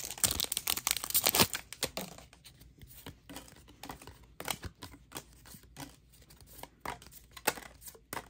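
Plastic wrapper of a basketball trading-card pack being torn open and crinkling for the first second or two, then scattered light clicks and rustles as the cards are handled.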